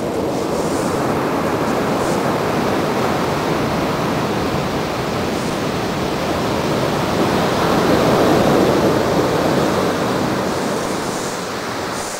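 Pacific Ocean surf breaking and washing up the beach: a continuous rushing that swells to its loudest about two-thirds of the way through, then eases off.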